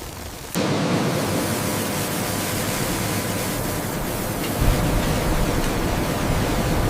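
Loud, steady rushing noise of flour-mill machinery with a faint hum, starting suddenly about half a second in; a deeper rumble joins about two-thirds of the way through.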